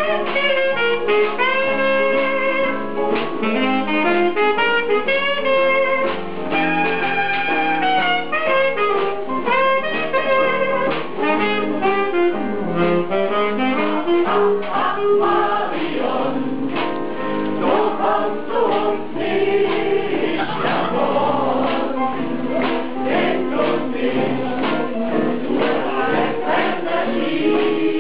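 Music with singing: a held melody line over accompaniment in the first half, growing busier with a steady beat from about halfway on.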